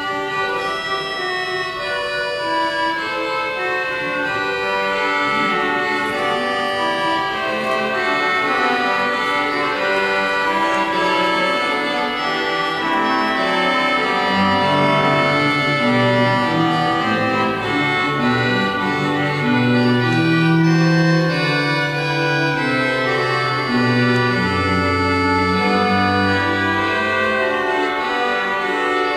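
Church pipe organ playing sustained chords, with low pedal notes coming in about halfway through.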